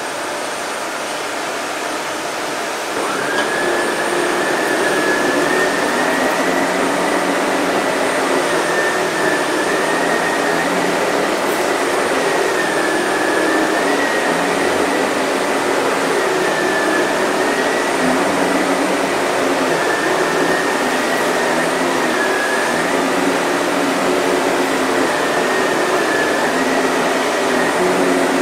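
Sebo Airbelt K1 canister vacuum running steadily while vacuuming a dirty rug. About three seconds in it gets louder and a high whine comes in, dipping slightly in pitch every couple of seconds.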